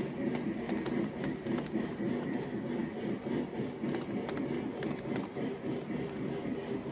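O gauge model freight cars rolling past on three-rail track: a steady rumble of metal wheels on the rails, with scattered sharp clicks as the wheels cross the track joints.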